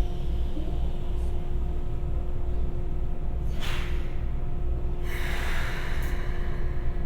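Keikyu 1000 series electric train's on-board equipment humming steadily over a low rumble, with a short burst of compressed-air hiss about halfway through and a longer air hiss about five seconds in, typical of the train standing at a station with brakes or doors working.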